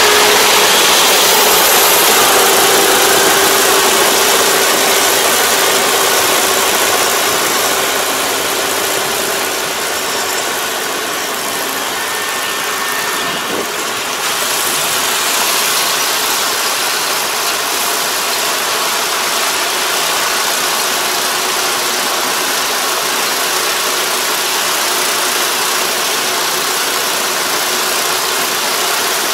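Kubota ER470 four-row combine harvester's diesel engine running steadily under harvesting load, a dense steady mechanical noise with a faint hum running through it; it dips a little in loudness about halfway through, then holds steady.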